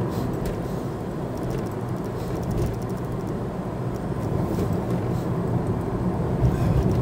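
Road noise heard from inside a moving car: a steady engine and tyre rumble, getting slightly louder near the end.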